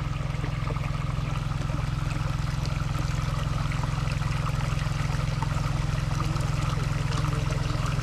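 Water pouring and running steadily from a fishpond being drained, over a constant low rumble.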